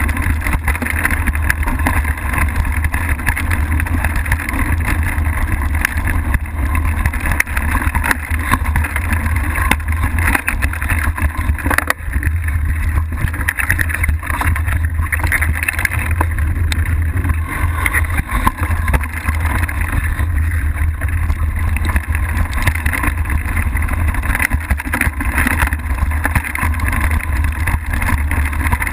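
Mountain bike descending a rough dirt and rock trail, heard from a GoPro on the handlebars: a constant low rumble of wind and riding noise with frequent small rattles and knocks from the bike over uneven ground.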